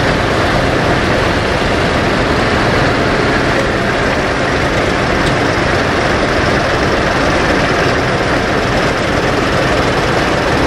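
A column of farm tractors' diesel engines idling together, a steady, unbroken engine noise.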